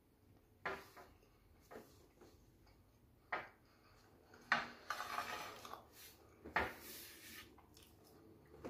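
A plate and a drinking glass knocking and clinking on a glass tabletop: a handful of short sharp taps, with a longer scrape about halfway through as the plate is slid across the glass.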